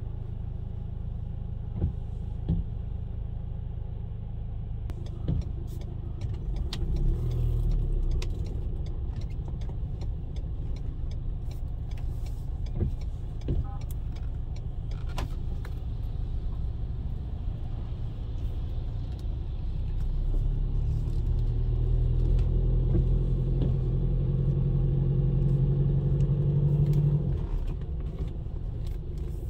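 2015 Ford Ranger XLT pickup's engine heard from inside the cabin, running as the truck drives along. About two-thirds of the way through the engine note grows louder and steadier as it pulls, then drops off sharply near the end, with scattered light clicks over it.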